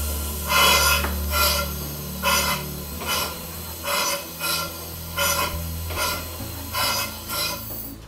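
Home-built single-cylinder-style paddle-wheeler steam engine running in reverse on compressed air, its exhaust puffing in a steady rhythm of a little more than one puff a second.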